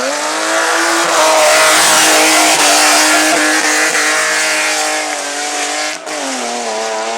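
Hillclimb race car engine at full throttle, rising in pitch and held at high revs for several seconds. About six seconds in there is a brief break, and then the revs climb again from lower, like an upshift.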